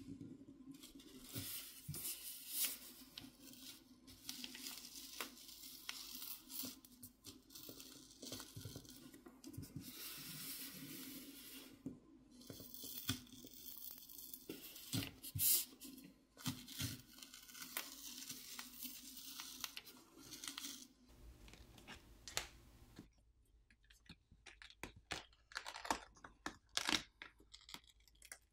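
Plastic pry pick scraping along the seam between a phone's plastic back cover and its frame, tearing through the heat-softened adhesive underneath, with many small clicks; faint. Near the end it quietens to a few light clicks as the cover comes loose.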